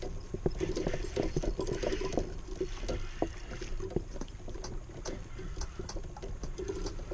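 Water lapping and slapping against the hull of a plastic fishing kayak, with scattered small knocks and clicks.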